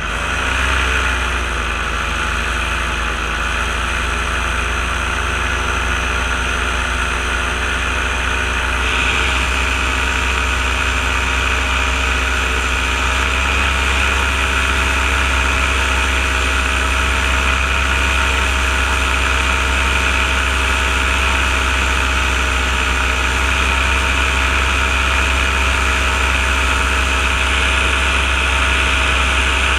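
Engine of a small open aircraft running steadily in flight, with a whooshing haze over it. Its pitch dips briefly right at the start, and the sound turns brighter about nine seconds in.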